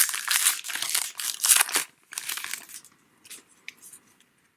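A trading-card pack wrapper crinkling and tearing as a pack is opened, in dense rustling bursts that die down after about two and a half seconds into a few faint ticks of cards being handled.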